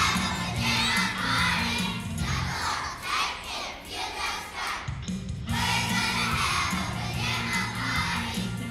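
Young children's choir singing together over backing music. The accompaniment drops out for a couple of seconds in the middle, leaving only the children's voices, then comes back in.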